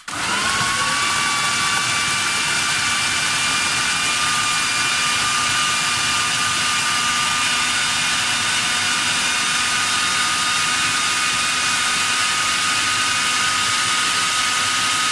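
Electric food processor running at full speed, its blade chopping carrots, beetroot, orange and water into a pulp. It switches on with a brief rise in pitch as the motor spins up, then holds a steady high whine over a low hum.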